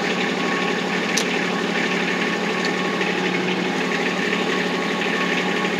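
Kubota RTV X1100C utility vehicle's three-cylinder diesel engine idling steadily and very smoothly, heard from inside the cab.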